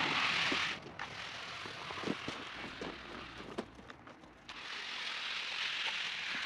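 A steady rushing hiss that stops about a second in and comes back after about four and a half seconds, with a few scattered knocks between.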